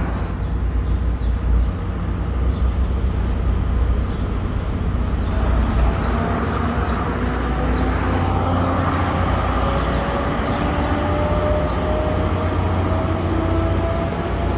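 MPI-built diesel-electric locomotive running with a deep, steady rumble, an engine that sounds like an EMD. From about five seconds in, a whine rises slowly in pitch as the train picks up speed.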